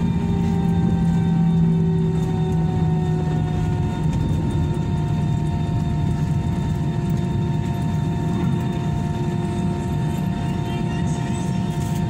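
Airbus airliner's jet engines and airflow heard inside the cabin during the landing roll: a steady, loud hum with a whine whose pitch drops a little over the first few seconds as the engines spool down, then holds steady.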